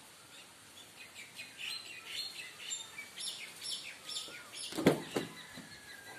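Small birds chirping in quick, repeated high calls. A sharp knock comes about five seconds in, followed by a softer one.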